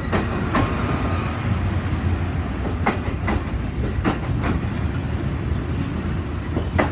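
Amtrak passenger train cars rolling past with a steady low rumble, the wheels clacking sharply over rail joints at irregular intervals, about seven times.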